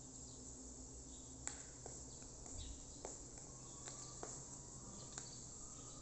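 Faint, steady high-pitched buzzing of insects, with a few faint knocks scattered through it.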